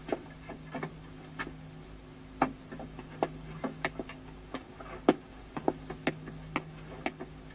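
Irregular light clicks and knocks of dishes and cutlery at a table as several men eat, roughly one or two a second, over a steady low hum.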